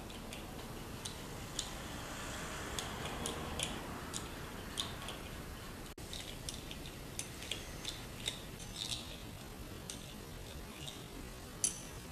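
Small brass and steel Meccano gears of a hand-turned differential model clicking and ticking irregularly as they mesh, over a steady hiss.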